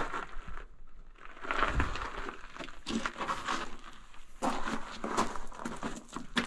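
Footsteps crunching on loose gravel and broken rock, a run of irregular crunches and clicks.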